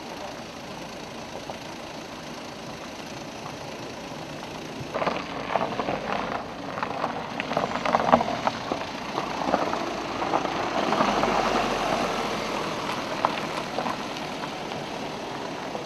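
Cars creeping across loose gravel: tyres crunching and crackling on the stones over low engine noise. The crunching starts about five seconds in, is loudest in the middle as a car passes close, then eases off.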